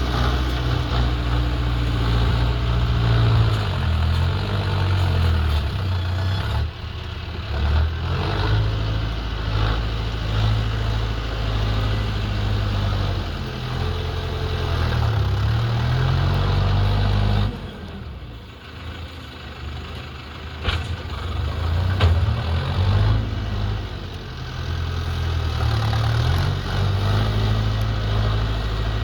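Bull backhoe loader's diesel engine running, its pitch rising and falling again and again as it revs. The engine goes quieter for a couple of seconds about two-thirds of the way through, then picks up again.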